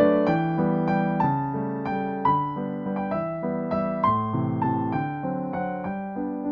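Background music: a gentle piano melody of separate notes, each struck and fading.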